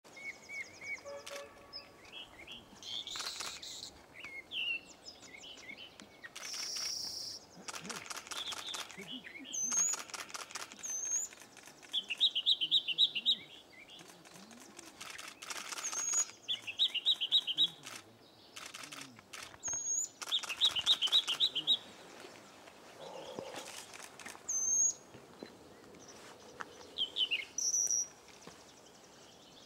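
Male firethroat singing: varied phrases a second or two long, coming every few seconds, mixing fast high trills, buzzy rattles and short high whistles.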